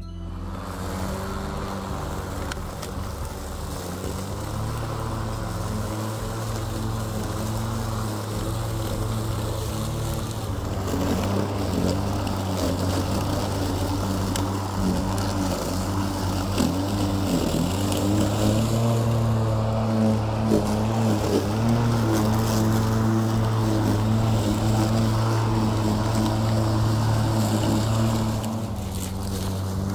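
Cordless electric lawn mower's motor and blade, running on a 42-volt Xiaomi M365 scooter battery, with a steady hum. It gets louder about ten seconds in, and the pitch dips and wavers for a while as it takes the load of cutting grass.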